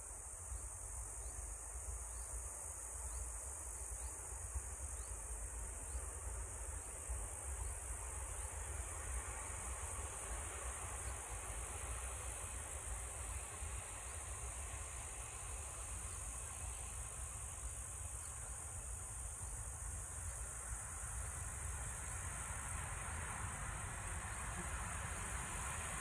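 Insects trilling steadily in a continuous high-pitched chorus, over a faint low rumble.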